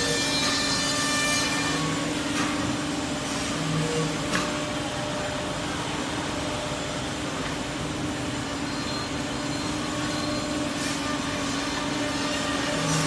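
Two-head CNC mortising machine for woodworking running with a steady hum. A higher whine sounds in the first couple of seconds, and a few sharp clicks come through.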